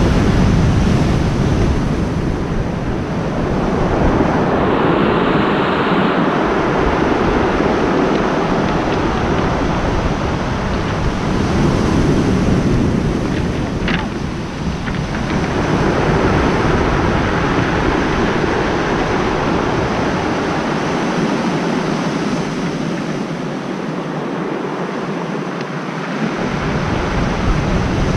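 Surf breaking and washing up a steep pebble beach, rising and easing in swells, with wind rumbling on the microphone.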